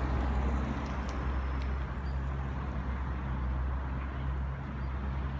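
Road traffic: a car going by on the street, over a steady low rumble.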